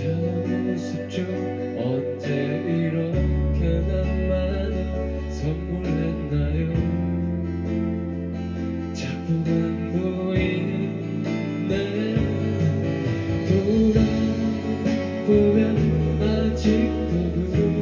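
Live pop band playing an instrumental passage between sung lines, with strummed guitar to the fore over sustained bass notes.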